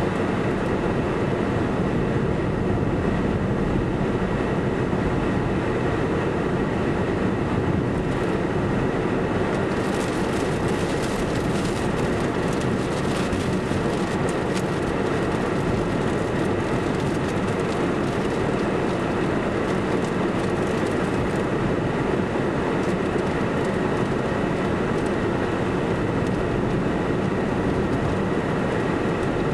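Steady rushing noise with a faint whine, mostly from a vehicle's defroster fan and the cooling fans on its power inverters, with the roar of the tornado's winds at times beneath it. From about ten seconds in, extra crackle and hiss comes and goes for roughly ten seconds.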